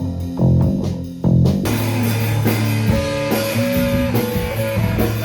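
Band music: bass and guitar play separate plucked notes, then about a second and a half in the full band comes in with drums and cymbals and carries on steadily.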